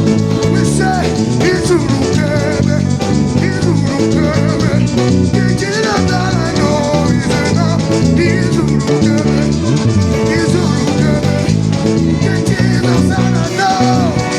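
Live gospel worship band playing: electric bass, guitar and drum kit over steady low bass notes, with voices singing along.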